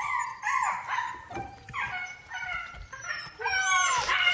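Newfoundland puppy giving several groups of high, wavering yips and squeals: its attempt at a bark, which sounds like a chimp or monkey.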